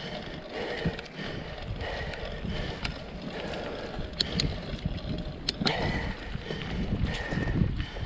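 Mountain bike rolling along a dirt singletrack over dry fallen leaves: steady tyre and leaf noise with low rumble, broken by sharp clicks and rattles of the bike over bumps, several of them around the middle.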